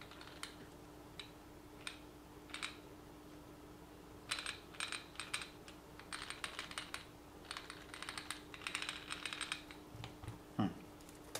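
Light clicking and rattling of small plastic RC car parts being handled, coming in quick runs that are busiest in the second half, over a faint steady hum.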